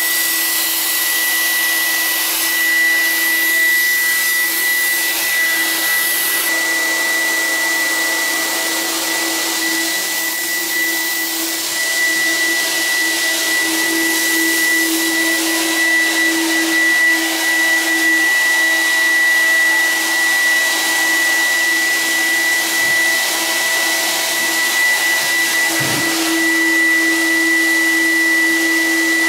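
Electric nebulizer (cold fogger) running steadily, its blower pushing a chemical mist out through a hose, with a constant high whistle over a lower hum. The hum weakens for a while in the second half and comes back strongly near the end.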